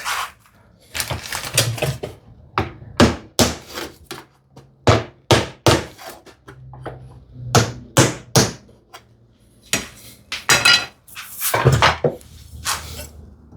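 Irregular series of sharp wooden knocks and clatters, a few dozen over the span, unevenly spaced, with a couple of longer scraping knocks near the end.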